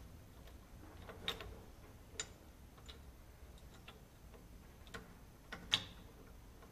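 Faint, irregular metallic clicks of a muck spreader's chain flail and its bolt being worked by hand into the rotor mount, about half a dozen over several seconds, the loudest near the end.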